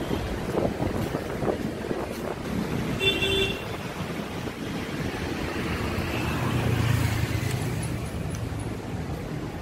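Outdoor road-traffic noise: a steady rumble of vehicles, swelling around seven seconds in, with a brief high tone about three seconds in and some wind on the microphone.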